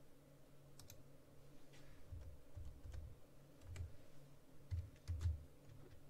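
A few faint computer keystrokes and clicks, irregularly spaced, with some dull low thumps among them, over a faint steady hum.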